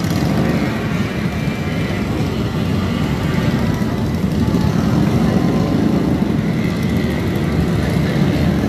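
Steady, loud din of many motorcycle engines running at once, with no single bike standing out.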